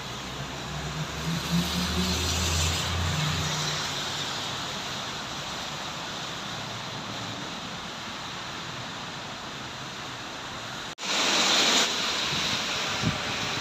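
Heavy rain falling, a steady hiss, with a low hum under it for the first three seconds or so. Near the end it cuts out for an instant and comes back louder for about a second.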